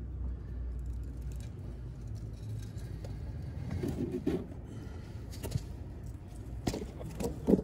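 Small metal clicks and light scrapes from hand work at a Harley primary drain plug as the plug is taken out, over a low rumble. The clicks are sparse, with the loudest few near the end.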